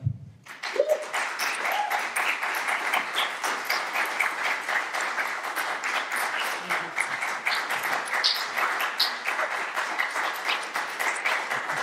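Audience applauding in a hall: dense, even clapping that starts about half a second in and carries on steadily.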